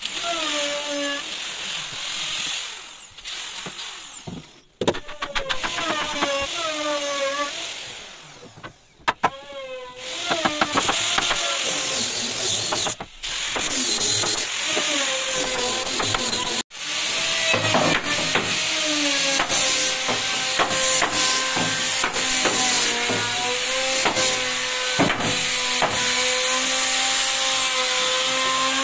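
Handheld electric power tool, a grinder-type sander, running on wood. Its whine sags in pitch and recovers several times as it is pressed in and eased off, then runs steadier in the second half. The sound drops out abruptly a few times.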